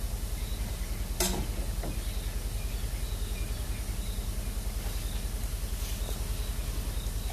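Bush ambience at dusk: faint insect chirps repeating about once a second over a steady, low pulsing hum, with a single sharp click about a second in.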